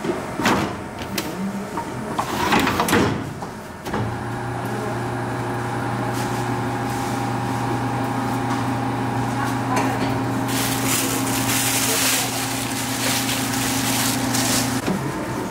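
A metal tray of dough slid and clattered into a noodle machine's press drawer. About four seconds in, the dough press motor starts and runs with a steady low hum for about eleven seconds, with a hiss joining over its last few seconds, then stops just before the end.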